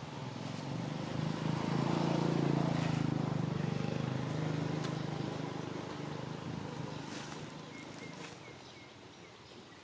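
A motor vehicle's engine passing by: a low drone that swells over the first couple of seconds and then slowly fades away.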